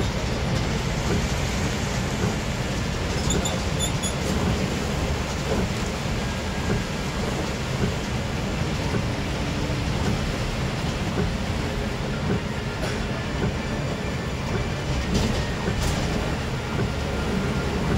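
Steady low rumble of a moving vehicle, even and unbroken.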